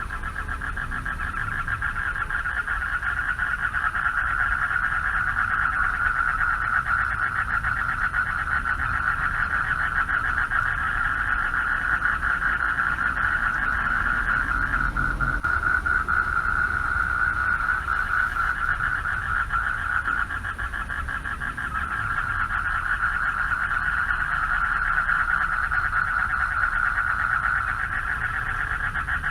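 Chorus of many male frogs calling for mates, a dense, rapid pulsing trill held at one pitch. It eases briefly about fifteen seconds in, and again around twenty to twenty-two seconds.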